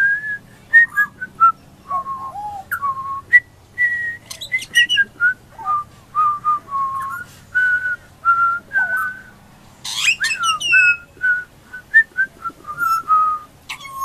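Juvenile pied butcherbird singing: a run of short, clear, flute-like whistled notes, some sliding up or down in pitch, with a few harsher, richer notes about five seconds in and again about ten seconds in.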